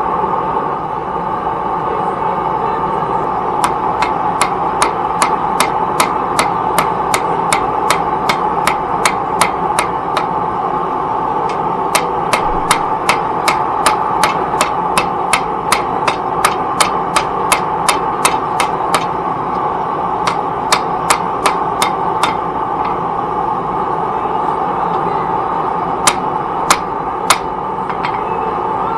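Hand hammer striking metal on an anvil during forging, in runs of sharp blows about three a second with short pauses between runs, ending in three spaced blows near the end. A steady rushing noise runs underneath.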